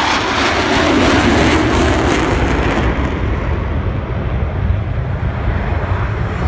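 Jet engine noise from four Blue Angels F/A-18 Hornets passing over in formation. The high-pitched part of the sound drops away about three seconds in as the jets fly off, leaving a low rumble, with wind on the microphone.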